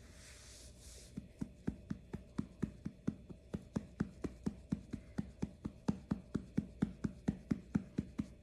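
An adult hand patting a baby's back to bring up a burp: soft, low, even pats at about four a second, beginning about a second in.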